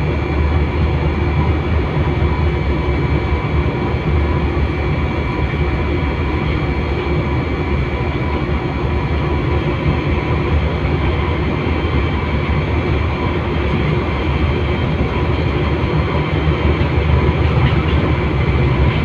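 Pakistan Railways diesel-electric locomotive under way, heard from the locomotive itself: a steady engine drone mixed with the running noise of the train on the rails.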